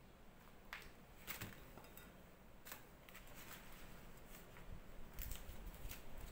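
Faint crisp rustles and a few sharp clicks of a large fresh leaf being handled and folded around a portion of cooked rice.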